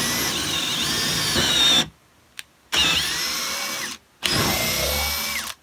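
Makita brushless cordless combo drill boring a large twist bit into a wooden board, run in three bursts of about two, one and a half, and one and a half seconds. The motor's whine dips and recovers in pitch as the bit bites into the wood.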